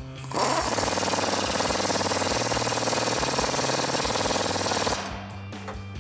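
Pneumatic impact wrench hammering continuously for about four and a half seconds, starting about half a second in and stopping about five seconds in, as it runs down and tightens a rear shock absorber mounting bolt.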